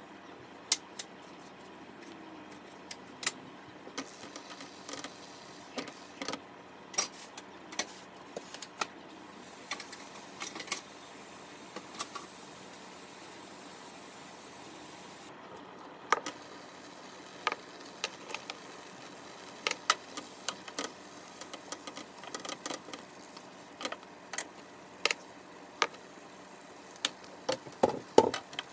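Milkfish paksiw simmering in a covered pan on the stove: irregular sharp pops and ticks over a steady low hiss. A quick cluster of clatter comes near the end as the glass lid is lifted off.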